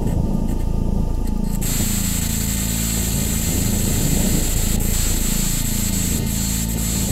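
Ambient electronic soundscape: a steady, dense noise drone with slowly sweeping, whooshing tones in the low end. A brighter hiss swells in about one and a half seconds in and holds.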